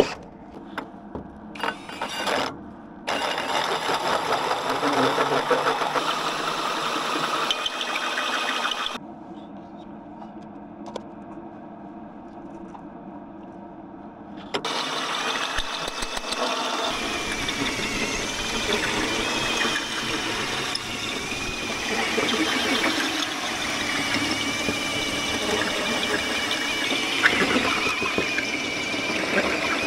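Cordless drill boring through a steel flat bar welded to a metal deck as a pilot centre, then, after a pause of a few seconds, a hole saw cutting into the deck plate with a steady grinding and a thin high whine.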